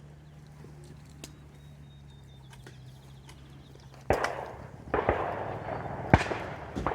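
A faint steady low hum, then about four seconds in two shotgun shots roughly a second apart, each with a trailing echo, followed by sharp clicks.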